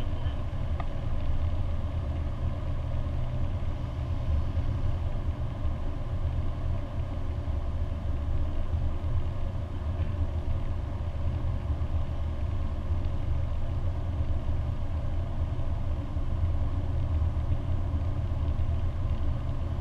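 Lancia Delta HF Turbo cruising at a steady speed, heard from inside the cabin: an even, low drone of engine and road noise.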